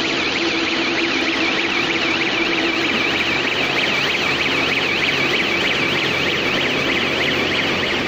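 An automatic silage round baler and wrapper running with a steady mechanical hum, while an electronic alarm warbles rapidly up and down in pitch over it.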